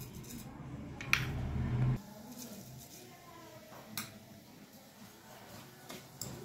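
Cumin and carom seeds sizzling faintly in hot mustard oil for a tadka, with a few small crackles and clicks. A low hum runs underneath and cuts off about two seconds in.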